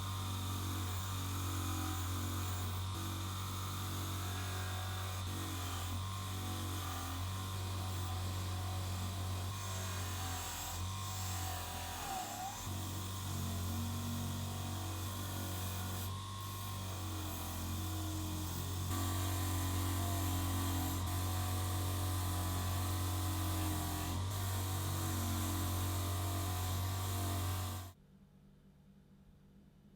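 Electric power tool motor running steadily with a strong hum and hiss. Its pitch wavers and dips briefly about twelve seconds in, and it is switched off suddenly near the end.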